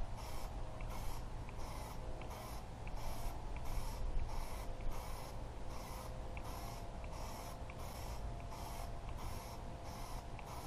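Aerosol can of Plasti Dip rubber coating, fitted with a trigger spray handle, hissing in short regular bursts about two a second as the coating is sprayed on. A steady low rumble runs underneath.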